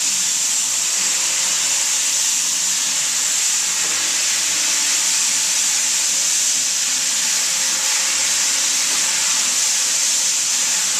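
Floor-cleaning machine running with a steady, loud hiss and a faint motor hum underneath.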